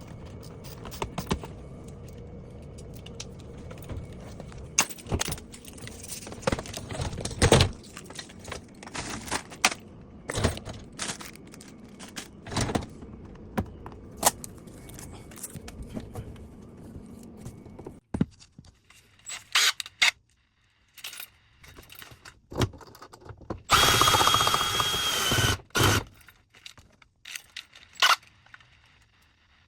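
Knocks, clicks and metallic clatter of hand work on a dishwasher installation, with a power tool running for about two seconds near the end.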